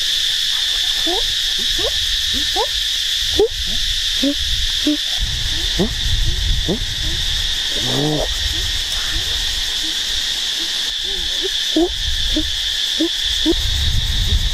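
Steady high-pitched insect chorus, with many short hooting calls that sweep up and down in pitch scattered through it and one fuller, voice-like hoot about eight seconds in.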